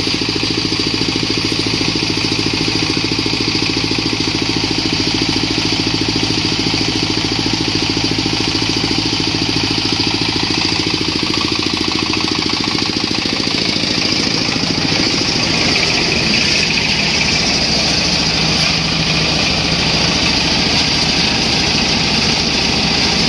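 Engine of a corn sheller running steadily during a test run, its sound turning rougher and noisier from about halfway through.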